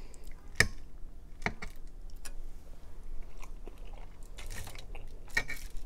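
Close-miked mouth sounds of eating spicy instant ramen noodles: slurping the noodles in and chewing, with scattered sharp clicks.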